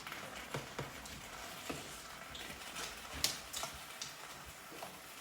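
Steak and shrimp frying in a pan: a steady sizzling hiss, with scattered light clicks and taps of kitchen utensils.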